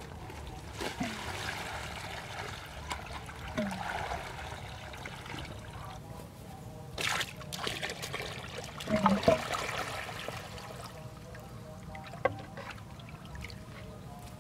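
Water pouring from bamboo tubes into a banana-leaf-lined basket and splashing, in uneven pours over about ten seconds, loudest in the middle, then dying away. A single sharp knock near the end.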